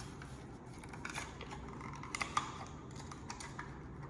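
Scattered small plastic clicks and taps as a new battery is fitted into a smoke detector's battery compartment.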